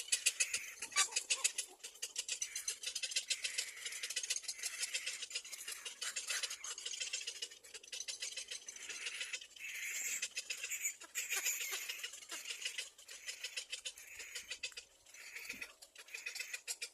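Little black cormorant chicks calling: fast trains of high, rapid ticking calls, many to the second, going on without a break and getting louder a little past halfway.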